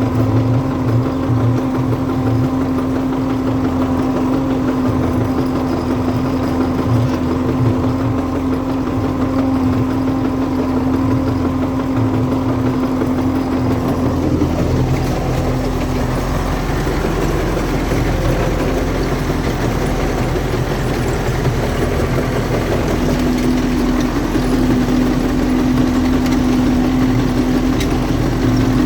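MTZ-82 tractor's diesel engine running steadily, with a knock from the front-drive intermediate driveshaft support that the owner cannot identify. The engine note shifts about halfway through.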